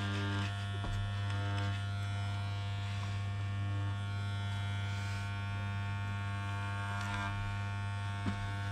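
Corded electric pet clippers buzzing steadily as they are pushed through a long-haired cat's fur.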